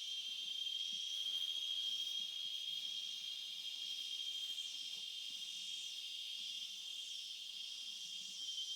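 Steady, high-pitched insect chorus trilling without a break, with a few faint short chirps above it.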